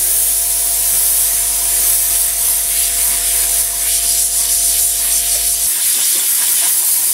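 Airbrush spraying paint: a steady, high air hiss from the gun held close to the canvas. A faint steady hum underneath stops about five and a half seconds in.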